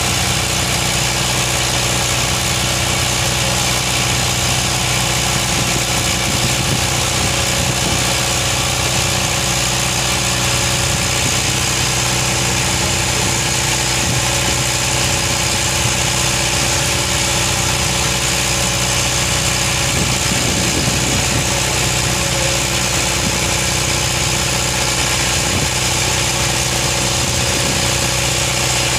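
Fishing boat's engine running steadily at a constant speed while the boat cruises along the river.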